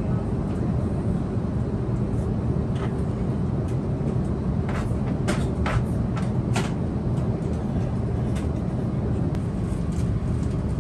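Cabin noise of an Airbus A350 in flight, heard from inside the cabin: a steady low drone of engines and airflow. A few short clicks come about five to seven seconds in.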